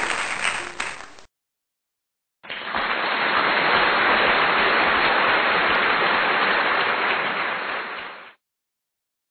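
Applause sound effects. One round fades out about a second in. After a short silence a second round of steady applause runs for about six seconds and then fades out.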